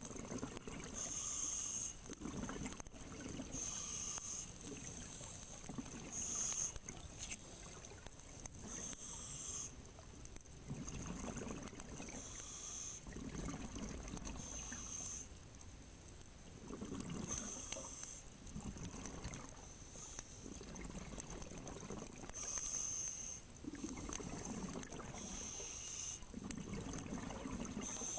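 Scuba diver breathing through a regulator: a hissing inhale followed by a rumble of exhaled bubbles, repeating every few seconds.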